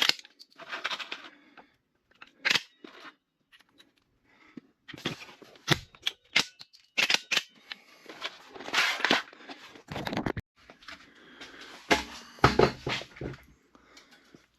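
Irregular knocks, sharp clicks and short scraping noises from hands-on work with tools and materials, in a small, bare room.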